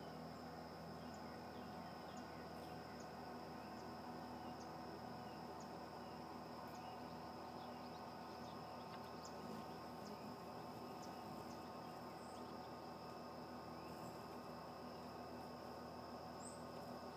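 Faint garden ambience: a steady high-pitched insect drone, with many brief high chirps scattered throughout.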